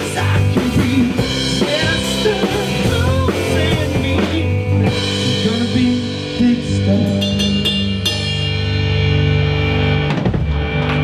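Live rock band playing: a drum kit with bass drum and snare under electric guitars and bass. The music breaks off briefly just after ten seconds in.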